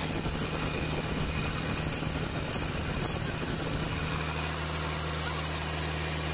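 Freshly overhauled Volvo D7E inline six-cylinder diesel idling steadily with its valve cover off and the rocker gear exposed.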